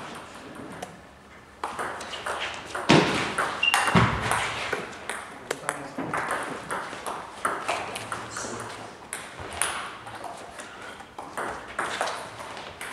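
Table tennis ball clicking back and forth off paddles and table during a doubles rally, with two louder thumps about three and four seconds in.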